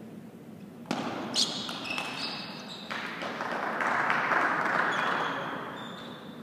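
Table tennis rally: the ball ticking off bats and table, with a sharp crack about a second and a half in, and shoe squeaks on the court floor. It is followed by a few seconds of noise from the spectators that swells and fades away.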